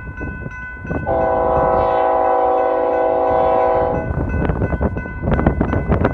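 Locomotive air horn sounding one long blast of about three seconds, a chord of several notes, starting about a second in. Under it, the crossing's warning bell rings with steady strikes over a low rumble.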